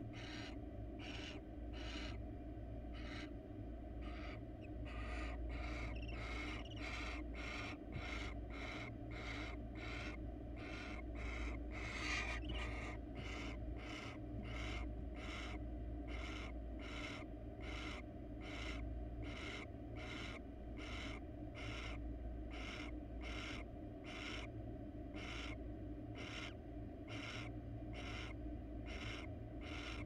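Barn owl giving a long, even series of short rasping hisses, nearly two a second, the snore-like call barn owls use to beg for food. One is louder about twelve seconds in. A steady low hum runs underneath.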